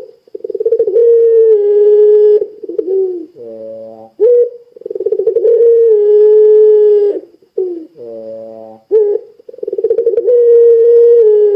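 Puter pelung dove cooing in full voice. It gives three long, drawn-out calls, each opening with a fast quaver before settling into a steady held note. Shorter, lower notes fall between the calls.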